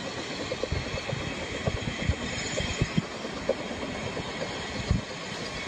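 Ffestiniog Railway narrow-gauge steam locomotive and its train running in the distance, a steady noise broken by irregular short low thumps, the strongest about five seconds in.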